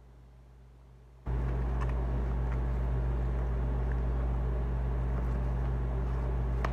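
A household appliance switches on about a second in and runs with a steady low hum, with a few faint clicks over it.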